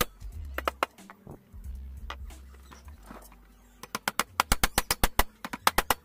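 Hammer driving nails into a wooden board: runs of sharp blows, a few in the first second, then a long, quick run of about four or five blows a second in the second half.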